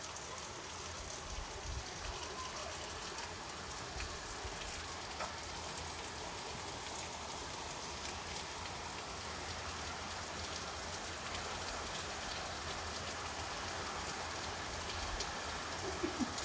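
Rain falling steadily, an even hiss with scattered faint drop ticks.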